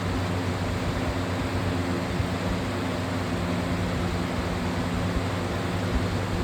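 A Lasko 20-inch box fan (model 3733) and a Utilitech box fan running together on high speed: a steady rush of moving air with a low, even hum underneath.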